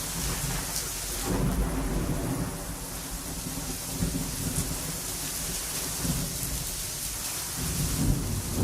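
Thunderstorm: thunder rumbling low and long over steady rain, the rumble building about a second in and again near the end.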